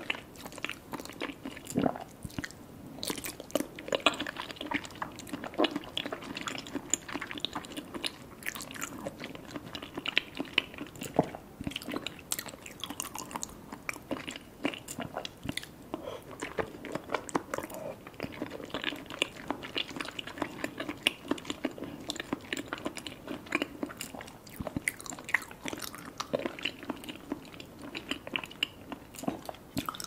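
Close-miked chewing and biting of kyoho grape jelly balls: squishy, wet bites and mouth sounds with many irregular small clicks and smacks throughout.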